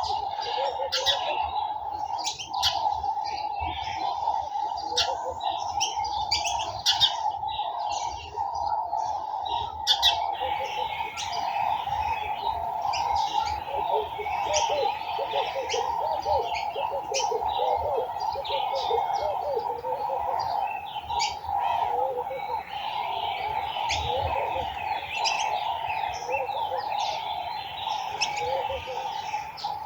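A garden bird chorus: many small birds chirping and twittering, busier from about a third of the way in, with short low repeated notes and a steady drone underneath.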